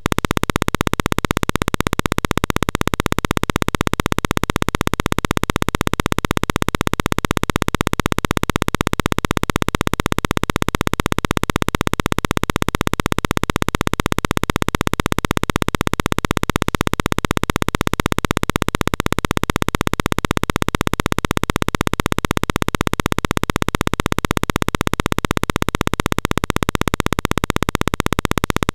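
A loud, steady, rapidly pulsing buzz that never changes.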